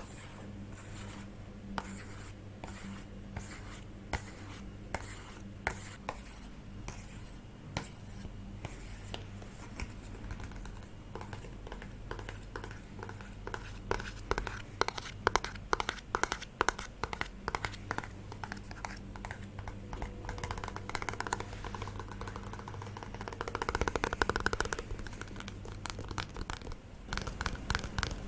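ASMR trigger sounds: light, crisp tapping and scratching on small objects. Scattered single clicks give way to quicker runs of taps about halfway through, with a scratchier patch near the end, over a steady low background hum.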